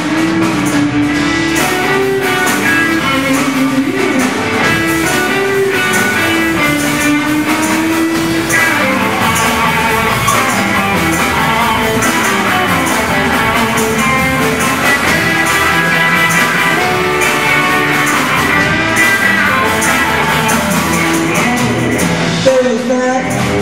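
Live rock band playing: electric guitars, bass and a drum kit keeping a steady beat.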